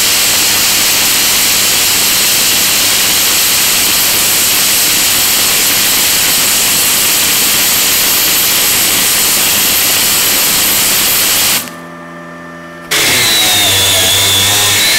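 Gasless flux-core arc welding with a Parkside PIFDS 120 A1 inverter welder: the arc gives a loud, steady hiss that stops suddenly about twelve seconds in. After a short quiet gap, an angle grinder fitted with a wire cup brush starts and runs.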